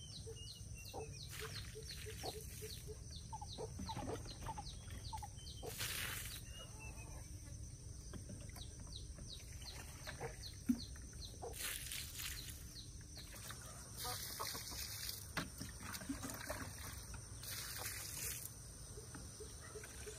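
Farmyard poultry clucking and calling, with high chirps repeated several times a second over the first few seconds and a few short spells of hiss.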